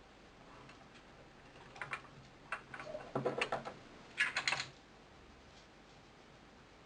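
Light clicks and taps of small tools and parts being handled during a smartphone screen repair, in several quick clusters between about two and five seconds in.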